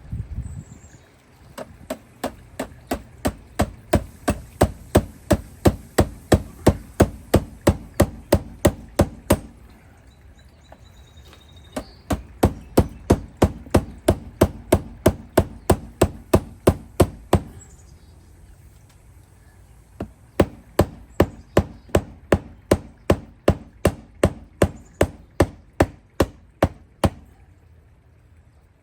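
Hammer driving nails to fix pipe hangers in place: three runs of quick, steady blows, about two or three a second, with short pauses between the runs.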